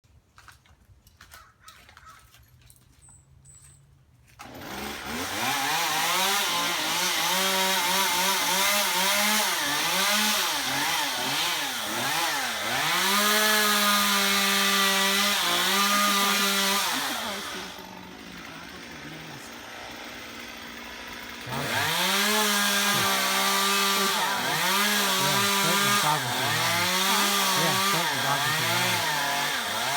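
Two-stroke chainsaw comes in about four seconds in and revs up and down over and over as it cuts. It eases off for a few seconds past the middle, then revs and cuts again.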